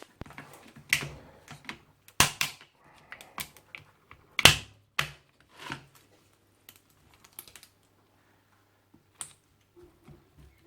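Irregular sharp clicks and knocks of a tool working at the plastic top of a sealed lead-acid car battery, trying to pry the bonded parts off, with the loudest knocks about two and four and a half seconds in.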